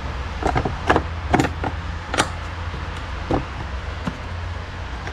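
Plastic engine-bay cover being pressed and clipped back into place over a car battery: a handful of sharp plastic clicks and knocks, the strongest about two seconds in.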